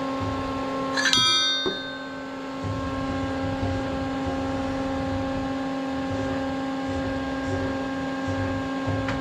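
1980 Matsuura 710V CNC vertical mill running as its head is jogged down the Z axis: a steady machine hum with several fixed tones over a low rumble. About a second in there is a short, sharp metallic ring, and the rumble briefly drops away just after. The scrape that the chewed gib strip sometimes makes low on the travel does not come.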